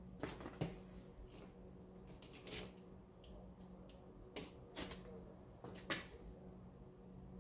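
Faint scattered clicks and knocks of equipment being handled, the sharpest about halfway through, over a faint steady hum.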